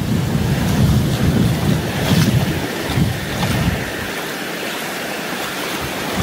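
Wind buffeting a phone's microphone in gusts over the hiss of small waves washing around the ankles in shallow surf. About four seconds in the wind rumble drops away, leaving the wash of the water.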